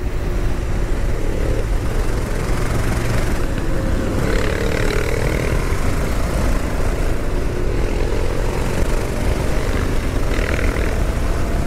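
Honda XL 600 single-cylinder four-stroke engine running steadily under way at road speed, with wind rushing over the microphone.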